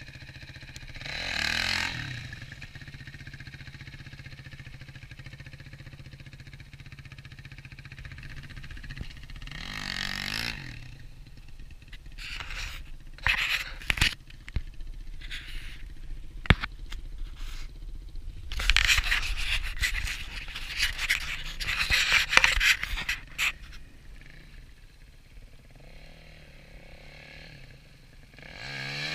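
Dirt bike engine running with a steady low hum, broken by several loud rushing stretches and a few sharp clicks near the middle.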